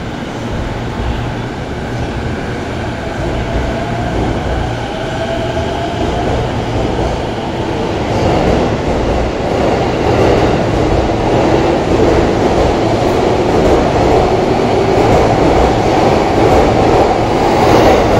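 JR East E233-7000 series electric commuter train pulling away from the platform and accelerating past. The traction motors whine, rising in pitch, over a steady running rumble that keeps getting louder as the cars pick up speed.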